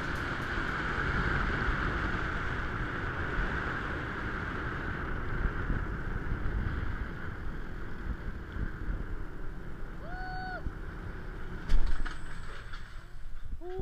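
Wind rush and the whirring of a zipline trolley's pulleys running along the steel cable, slowly fading as the rider slows on the approach. A brief call about ten seconds in, and a loud knock a little before the end.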